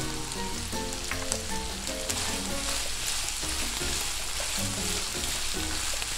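Boneless chicken pieces sizzling in oil in a frying pan while a spatula stirs them, over soft background music.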